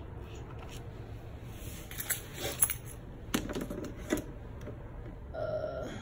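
Screwdriver driving a screw into the washing machine's plastic base frame: scattered light clicks and scrapes, with a few sharper ticks in the second half.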